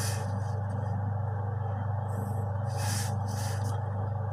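A graphite pencil scratching on paper along a plastic ruler in a few short strokes, over a steady low hum.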